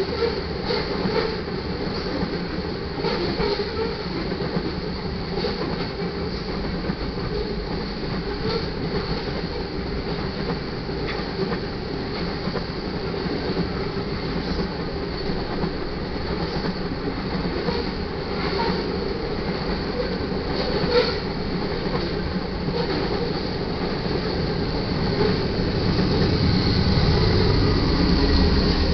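Freight cars of a manifest train rolling past, with a steady rumble, wheels clicking over rail joints and some wheel squeal. Near the end the rumble grows louder as the rear distributed-power locomotive, a GE Dash 9-44CW diesel, draws near.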